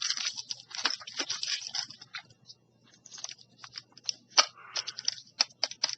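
Small lock parts from a reload kit being handled: a crinkly rustle for about two seconds, then a run of light, sharp clicks.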